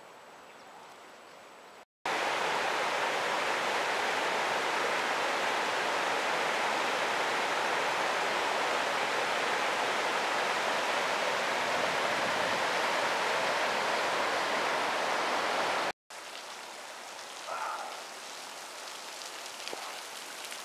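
River rapids, a loud steady rush of white water over rocks. It cuts in sharply about two seconds in and cuts off sharply about five seconds before the end, with much quieter outdoor ambience either side.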